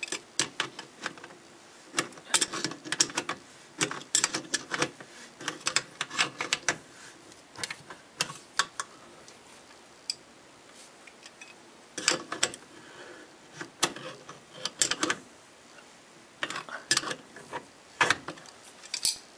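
Tongue-and-groove pliers clicking and scraping on a sink pop-up drain's mounting nut as it is tightened, in irregular clusters of sharp metal clicks separated by quieter pauses.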